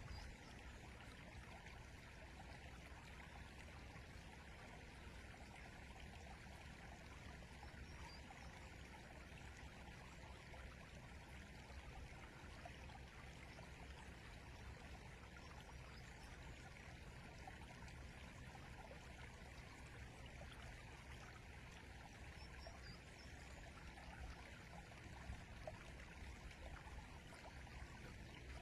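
Faint, steady rush of a flowing river.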